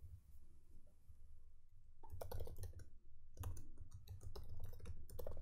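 Computer keyboard being typed on, a quick run of key clicks starting about two seconds in.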